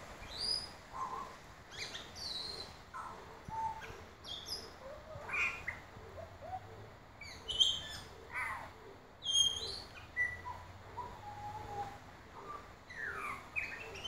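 Butcherbird singing: a loose run of clear whistled notes, many sliding up or down in pitch, with short gaps between phrases.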